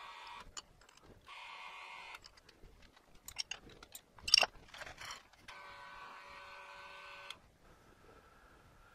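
Tool change on a milling machine: metal tooling clicking and clinking as it is handled, between short runs of steady mechanical whirring, the longest about two seconds.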